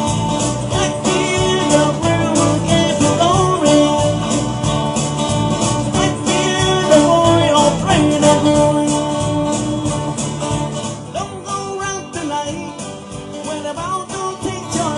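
Live band playing a country-rock song with guitar and a steady beat, softening somewhat in the second half.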